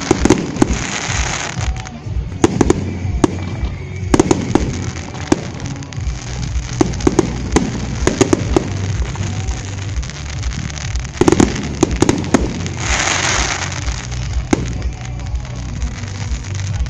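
Fireworks display: a rapid series of sharp bangs from aerial shells bursting, with two spells of crackling, one near the start and one about 13 seconds in.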